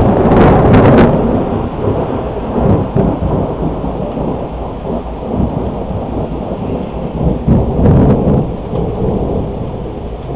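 Thunder from a close strike rumbling loudly, rolling on with a second swell about eight seconds in and then fading, with rain falling steadily underneath.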